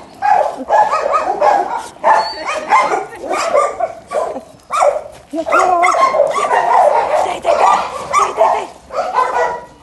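Several dogs, puppies among them, barking, yipping and whining at close range, their calls overlapping.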